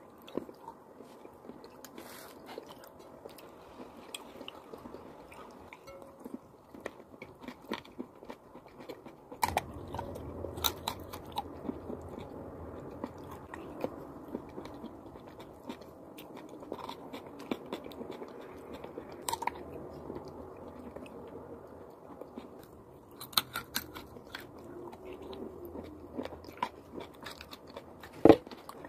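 Close-up biting and chewing of chalk and clay, a continuous chewing sound crossed by many short crackly crunches, with one sharp loud crack near the end.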